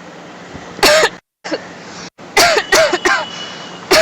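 A person coughing on purpose in loud, rough, voiced coughs: one about a second in, then a run of several from about two and a half seconds in, with another starting at the very end. The sound cuts out completely twice for a moment between them.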